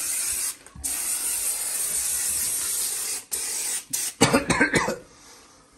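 Aerosol can of foam upholstery cleaner spraying in long hisses onto fabric, broken by a short pause, then a few short uneven spurts about four seconds in as the can runs nearly empty.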